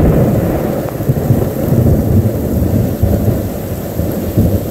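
Heavy rainstorm with gusty wind buffeting the microphone: a loud, uneven low rumble over the hiss of rain.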